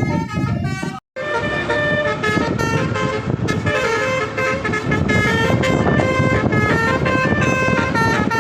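Bus telolet musical air horns playing a melody of held notes that step from pitch to pitch, over engine and road noise. A brief cut to silence about a second in.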